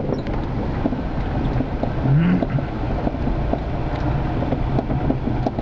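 Steady engine and driving noise heard from inside a 4x4's cab as it drives across a grass field, with a short rising tone about two seconds in.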